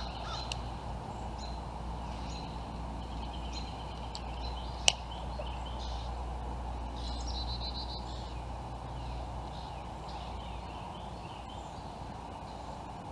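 Birds chirping and calling, with a short trill about seven seconds in, over a steady background hiss and low hum. One sharp click about five seconds in is the loudest sound.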